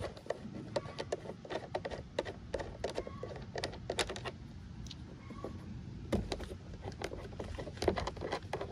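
Hands working the plastic cabin air filter housing on a Kubota LX2610 tractor cab: a run of irregular clicks and knocks, with a louder knock about six seconds in.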